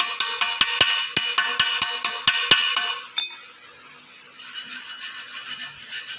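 Background music with a quick, clicky percussive beat that stops about three seconds in. After a short lull, a quieter, steady hiss follows.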